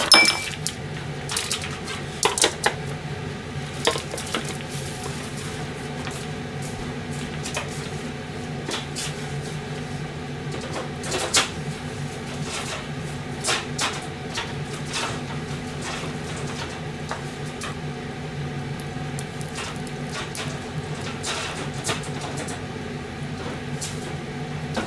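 A few clinks of dishes in the first couple of seconds, then a steady low hum with scattered light clicks and ticks.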